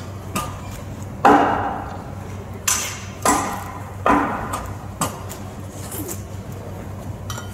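Hammer blows on a wooden cross while the body is taken down from it: a series of irregular sharp knocks, each with a short ring, the three loudest a second or two apart.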